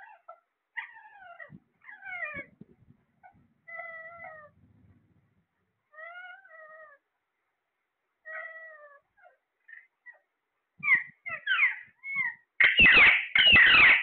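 Caged Alexandrine parakeets calling: a string of short calls that fall in pitch, one every second or two, then much louder, harsh screeches in the last second and a half.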